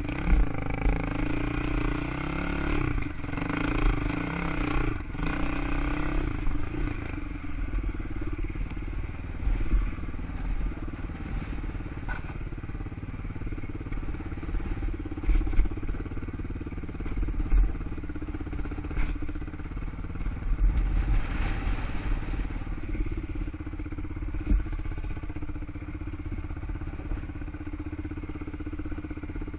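ATV engine running as the quad is ridden, its note shifting over the first few seconds and then holding steady, over a constant low rumble.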